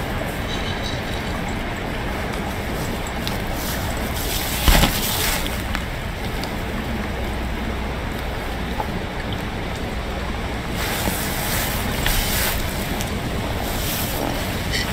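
Wind blowing steadily across the outdoor microphone. A single thump comes about five seconds in, and a louder gusty hiss about eleven seconds in.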